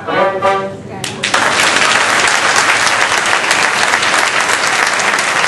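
A wind quintet (flute, oboe, clarinet, French horn, bassoon) sounds its last held chord, then about a second in loud audience applause starts suddenly and continues.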